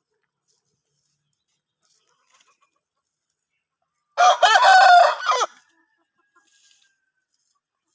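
A rooster crows once, about four seconds in: a single loud call of roughly a second and a half.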